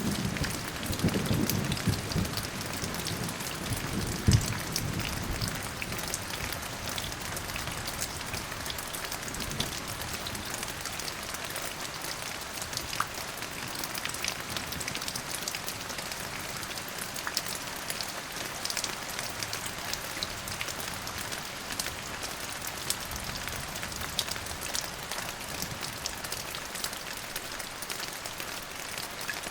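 Steady rain falling, with a dense hiss and close, crisp drops landing. The tail of a thunder rumble dies away over the first few seconds, with one last low thud about four seconds in.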